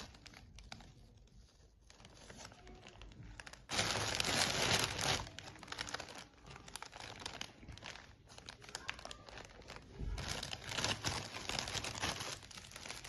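Plastic packaging crinkling and crackling as it is handled and pulled open. It is quiet at first, with a loud burst of crinkling about four seconds in and another stretch of crinkling from about ten seconds in.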